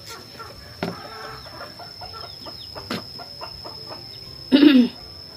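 Chickens clucking, with one louder, falling call near the end, over a steady high-pitched whine.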